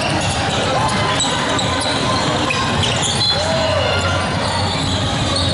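Indoor basketball game: spectators' chatter echoing around the sports hall, with a basketball bouncing on the hardwood court and two short sneaker squeaks.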